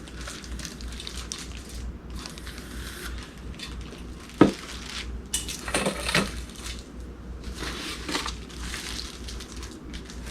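Cardboard packing and paper being pulled out and handled while unpacking a box, an irregular rustling and crinkling, with a sharp knock about four seconds in.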